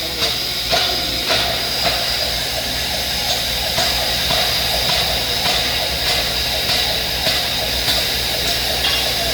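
Steady machinery noise, a hiss over a low hum, with faint knocks now and then.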